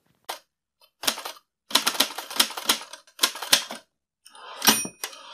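Typewriter sound effect: keys clacking in several quick bursts, with a short bell-like ring near the end.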